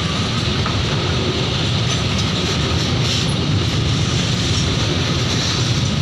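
Container wagons of a freight train rolling past close by: steady noise of the wheels running on the rails.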